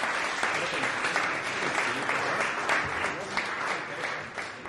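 Audience applauding after a live band performance: dense clapping that gradually dies down, with some voices in the crowd.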